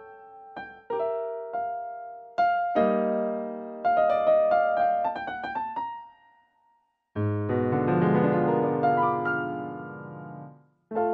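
Solo piano playing: struck chords and a quick run of notes, a break of about a second just past the middle, then a loud, full low chord with rapidly repeated notes that dies away, and a new chord right at the end.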